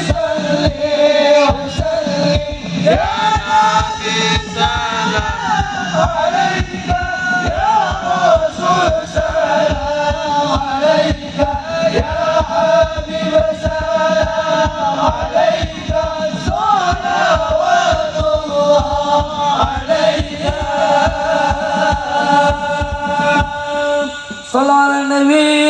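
Devotional sholawat chanted in chorus by men's voices over a fast, steady beat of rebana frame drums.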